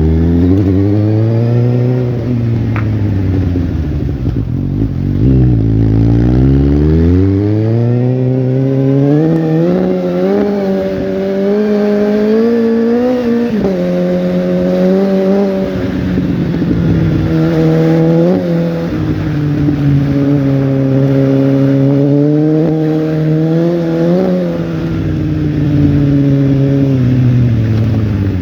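Suzuki GSX-S750's four-cylinder engine running through its exhaust, its pitch rising and falling with the throttle. It dips twice early on, climbs steadily for several seconds, drops sharply about halfway, then holds fairly steady with a few short rises.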